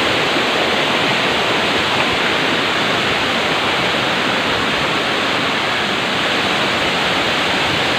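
Waterfall plunging into a rock pool: a loud, steady rush of falling water.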